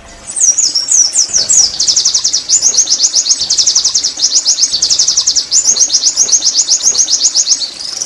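White-eye (pleci) singing: a few high, sliding notes that fall in pitch, then a long, very fast run of high repeated notes with a couple of short breaks, stopping just before the end.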